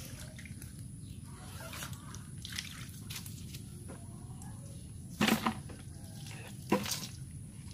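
Water dripping and splashing off a mesh fish trap as it is lifted out of a muddy ditch, with two brief louder splashes about five and seven seconds in.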